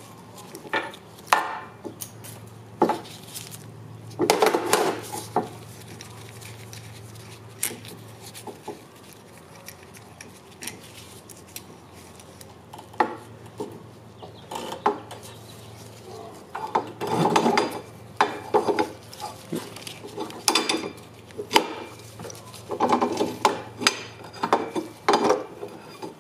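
Metal clinks, knocks and scraping as a go-kart's rear brake caliper and carrier are handled and fitted onto the axle. The sounds come in scattered clusters over a steady low hum.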